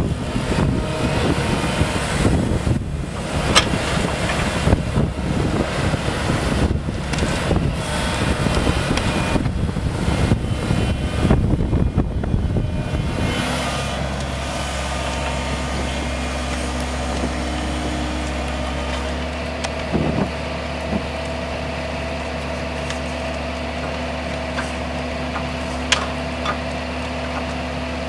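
JCB 160W wheeled excavator's diesel engine running under load, with uneven rumbling and knocking as the screening bucket is worked through the soil. About halfway through the sound settles into a steady hydraulic drone with held tones as the screening bucket's drum turns and sifts soil, with an occasional sharp knock of stones in the drum.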